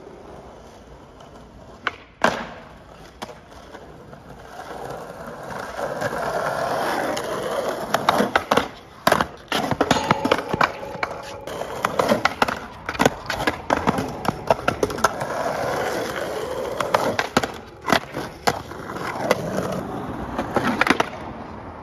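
Skateboard wheels rolling over asphalt, broken by many sharp clacks of the board popping and slapping the pavement as tricks are tried and bailed.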